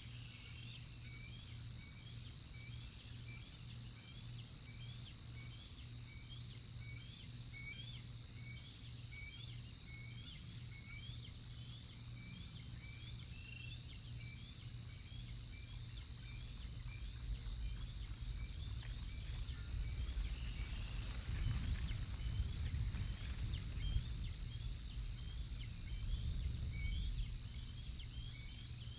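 Outdoor ambience: a steady series of short, high chirps repeating all through, over a low rumble that swells in the second half and dies back near the end.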